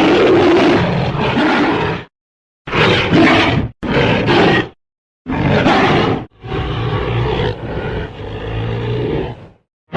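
King Kong's roar sound effect from the 1933 film: a series of separate, loud, rough roars cut apart by moments of dead silence. One roar ends about two seconds in, three short roars follow, and a longer one grows quieter before it cuts off near the end.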